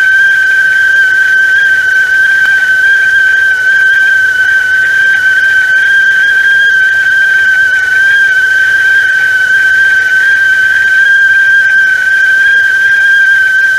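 Stovetop tea kettle whistling at the boil: one loud, steady high-pitched tone held without a break.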